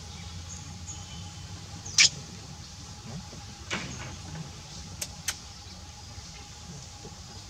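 A steady low background hum broken by a few short, sharp sounds: the loudest about two seconds in, another a little later, and a quick pair about five seconds in.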